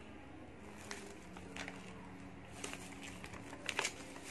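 Paper and plastic packaging rustling and crinkling as it is handled, in scattered short crackles with the loudest pair near the end.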